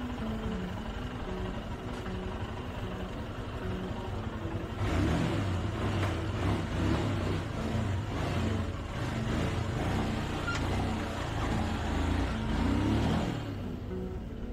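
Motorcycle engine running and revving, louder for about eight seconds from about five seconds in.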